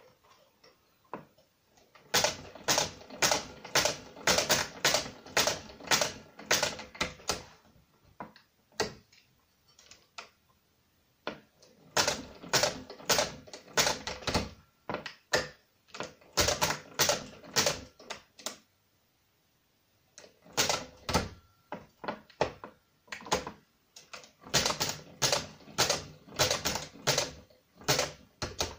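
Brunsviga pinwheel mechanical calculator being cranked: rapid mechanical clicking and clacking, about two strokes a second, in three spells of several seconds separated by short pauses.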